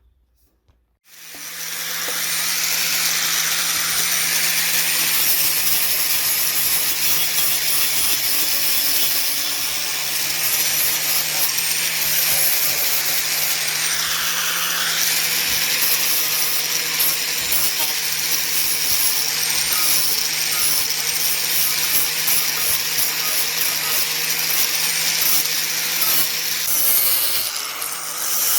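An electric power tool starts about a second in and runs steadily, with a rough abrasive grinding over its motor hum as it works the material.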